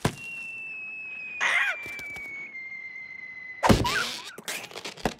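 Cartoon sound effects: a long, thin whistle sliding slowly down in pitch, cut off by a loud thud about three and a half seconds in. A short squawk-like cry from the cartoon bird comes midway, and more cries follow the thud.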